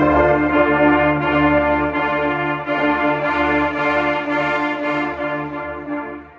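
Marching band brass section holding one loud sustained chord, which starts together at the beginning and is held for about six seconds before cutting off.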